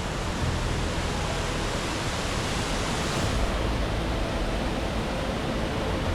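Waterfall's rushing water: a loud, steady noise of falling white water close by, with a low rumble underneath.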